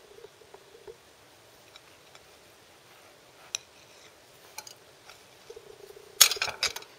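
Knife cutting through a crumbly shortbread square on a glass plate: faint, sparse ticks and scrapes. About six seconds in, a quick cluster of louder taps and clicks as the halves and the knife meet the plate.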